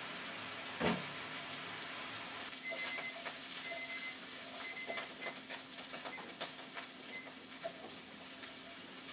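Vegetables sizzling in a skillet while a wooden spoon stirs and scrapes them, with a single knock about a second in. The sizzle grows fuller about two and a half seconds in, with steady spoon strokes through it.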